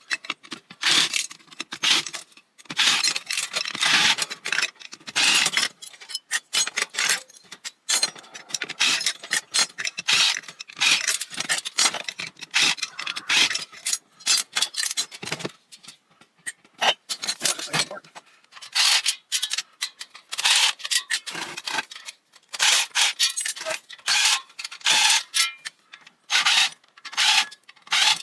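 Metal parts of a ceiling fan scraping and rattling as it is taken apart, in quick irregular strokes broken by short pauses.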